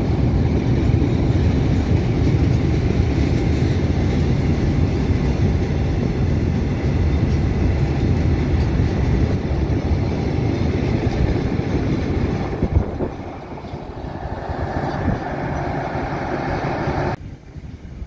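Freight train of covered boxcars rolling past close by: a steady, loud rumble of steel wheels on rail. It eases off about two-thirds of the way through and cuts off suddenly near the end.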